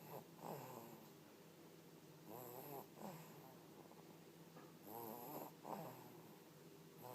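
Soft snoring in a regular rhythm, one breath about every two and a half seconds, each breath heard as a longer snore followed by a shorter one.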